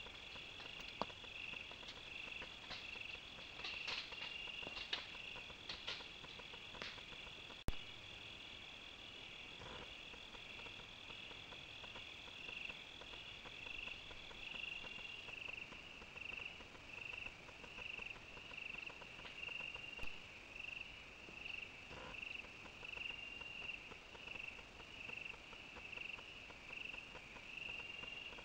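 Night insect chorus of crickets: steady high-pitched trilling, one of the trills dropping out about halfway while a pulsing, rhythmic chirping carries on. A few faint ticks early on and one sharp click about eight seconds in.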